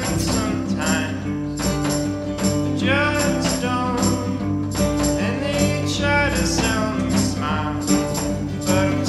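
Background music: a song with a singing voice over a steady beat with jingling percussion.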